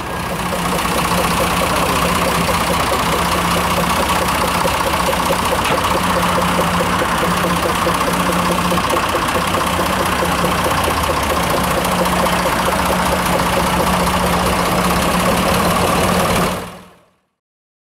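Narrow-gauge locomotive's engine running steadily at idle, a continuous mechanical hum with a low drone and no exhaust beat, fading out near the end.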